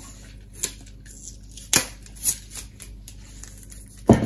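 Handling noises: a few sharp clicks and rustles as a meter test lead and a home-made antenna loading coil are handled, then a louder knock near the end as the coil, wound on a plastic pipe former, is set upright on a wooden worktop.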